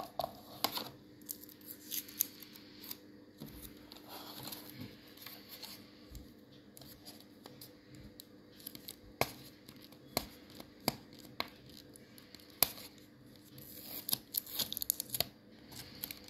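Adhesive tape being peeled off a clear plastic clamshell pack, with crinkling and irregular sharp clicks of the stiff plastic being handled, coming thicker near the end.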